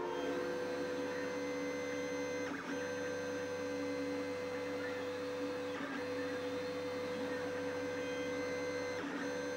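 3D printer running a print: the print head's motors and fans give a steady hum of several held tones. The hum shifts briefly about every three seconds, and a faint higher whine rises and falls as the head moves.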